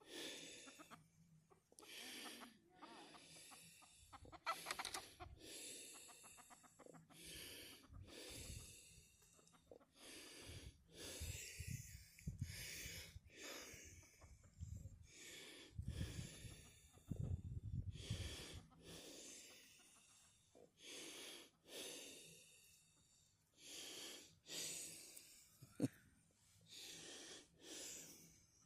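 Faint, repeated hissy breaths close to the microphone, about one a second, with a low rumble partway through and a single sharp click near the end.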